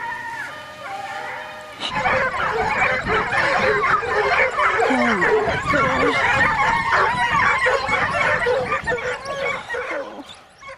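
A few seconds of music give way, about two seconds in, to a pack of hunting hounds baying and yelping together, many voices overlapping. The cry fades out near the end.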